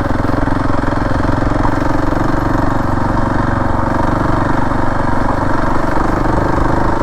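Husqvarna 701 Enduro's single-cylinder four-stroke engine running steadily while the motorcycle is ridden.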